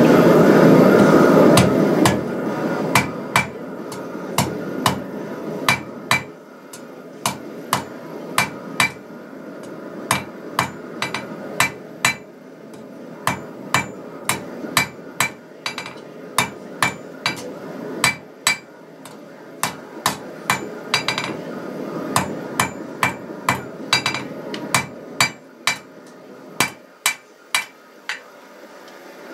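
Hand hammer striking hot flat steel on an anvil, drawing the end down to a taper: a long run of ringing clangs, about two blows a second in groups with short pauses. Under them a steady rushing noise, loud for the first two seconds and then quieter.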